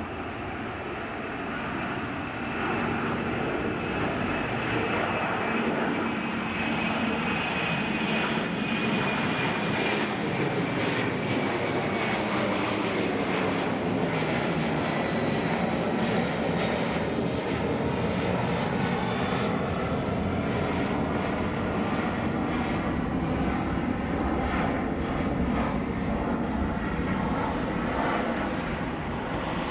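Alitalia Airbus A330-300's twin jet engines, a loud steady rumble that swells over the first few seconds and eases near the end, with a thin high whine slowly falling in pitch as the airliner passes.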